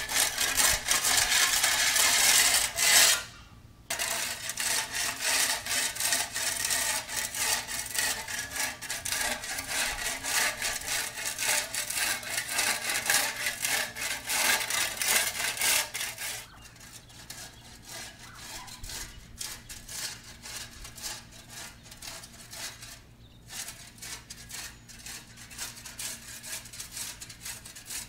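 A flat shovel's blade scraping and chopping along the concrete edge of a driveway to edge the lawn, in rapid repeated strokes. It pauses briefly about three seconds in and grows fainter after about sixteen seconds.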